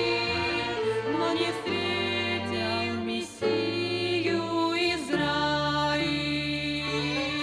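Women singing a slow song with a violin ensemble accompanying them over a sustained bass line, the notes held and changing about once a second.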